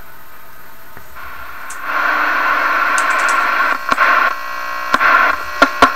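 Johnson Messenger vacuum-tube CB radio hissing with static from its speaker, growing much louder about two seconds in, with several sharp crackles and pops near the end.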